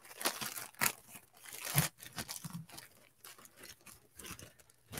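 Plastic wrapping around a new T-shirt crinkling and rustling as it is handled and pulled open, in irregular crackles with a few louder ones in the first two seconds.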